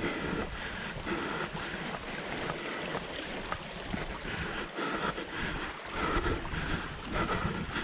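Wind buffeting an action camera's microphone, a steady rumble with hiss, with a hiker's footsteps on the trail repeating about once a second.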